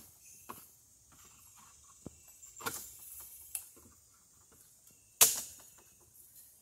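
Scattered cracks and knocks of dry sticks and debris in the brush, with one sharp crack about five seconds in.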